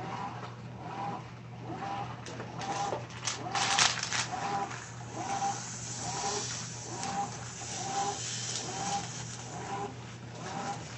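Top-loading washing machine running, with a steady motor hum and a short squeak repeating about twice a second as it agitates. A brief rush of noise comes a little before four seconds in.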